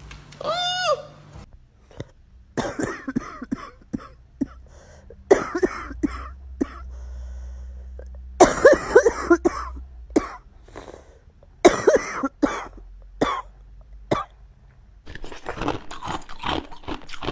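A person's voice making a series of short coughs and throat-clearing noises, with other brief vocal sounds between them.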